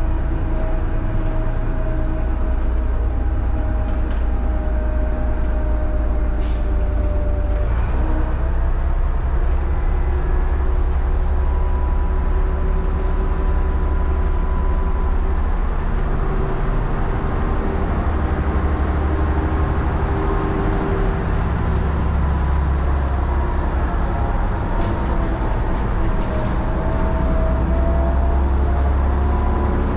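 Leyland 680 11.1-litre diesel engine of a 1976 Leyland Leopard city bus running as the bus drives along, a steady low rumble whose engine note drops and changes about eight seconds in.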